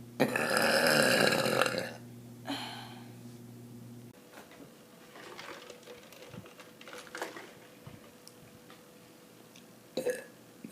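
A woman's long, loud burp lasting about a second and a half, then a short second burp, and another short one near the end.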